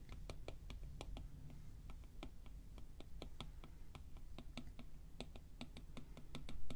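Stylus tip tapping and dabbing on an iPad's glass screen while painting: quick, light, irregular clicks, a few a second.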